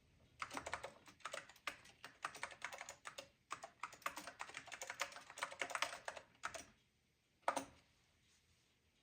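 Keystrokes on the Macintosh Color Classic's keyboard: a quick, uneven run of typing for about six seconds, then a single keystroke about a second later.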